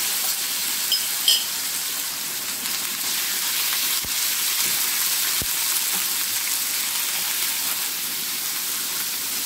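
Raw marinated chicken pieces sizzling steadily in hot olive oil in a frying pan while being stirred and turned with a wooden spatula. A couple of short clinks about a second in.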